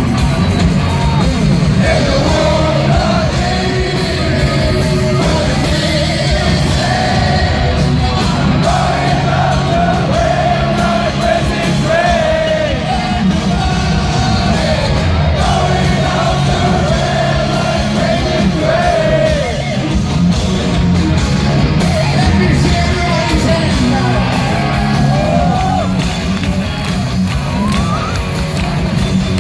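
Live heavy rock band playing loud and steady, with a singer's voice over it and some yells.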